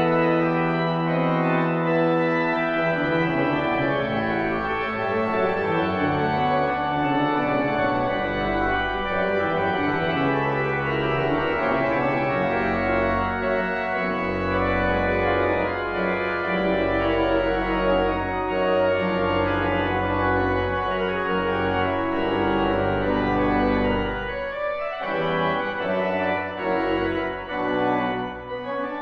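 Church pipe organ playing a dense, many-voiced passage of sustained notes, with deep bass notes sounding through the middle and dropping away about four seconds before the end.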